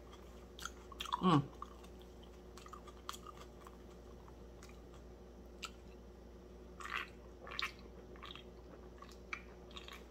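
Close-miked chewing of fried fish, with soft wet mouth clicks throughout. About a second in there is a short hum falling in pitch. Around seven seconds in come a few louder sips from a can.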